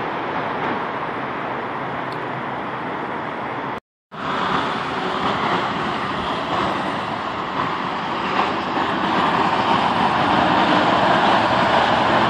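Steady rushing background noise, with a brief gap of silence about four seconds in.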